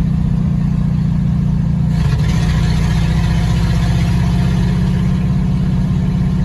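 1954 Ford Customline's engine running steadily as the car is driven, with a broad rushing noise joining about two seconds in.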